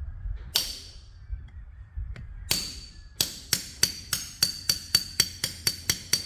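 Hammer blows ringing on the steel of a John Deere baler roller chain, knocked apart by hand without a chain breaker. Two single strikes, then a steady run of about three blows a second.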